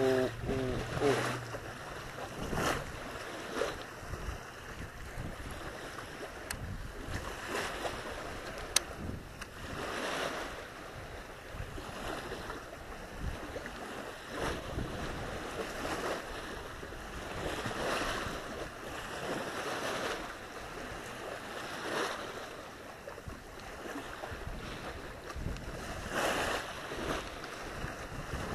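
Small lake waves lapping and washing onto the shore in irregular surges every few seconds, with wind on the microphone.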